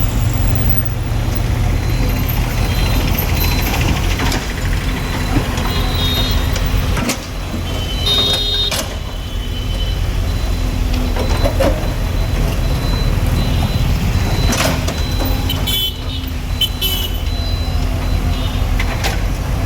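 Busy road traffic with a heavy engine running steadily underneath, a few short high-pitched beeps and some brief knocks.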